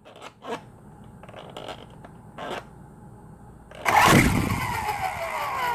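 The MJX T10 toy RC helicopter's small electric rotor motors spin up abruptly about four seconds in, then wind down, their whine falling steadily in pitch. A few small clicks come before it.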